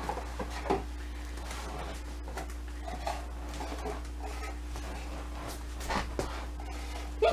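Small boxes being set down and adjusted on a vinyl floor: a few light taps and clicks, the sharpest about a second in, then footsteps near the end, over a steady low hum.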